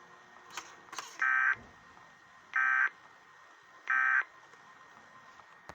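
Emergency Alert System end-of-message signal: three short, buzzy bursts of SAME digital data tones, a little over a second apart, marking the end of the weather warning broadcast. A couple of faint clicks come just before the first burst.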